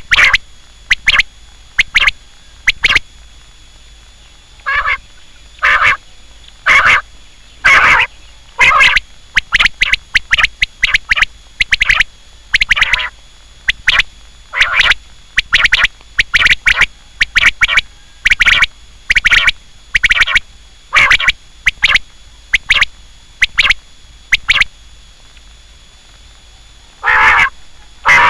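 Quail calling: short, loud notes repeated about once a second, in runs broken by a couple of longer pauses.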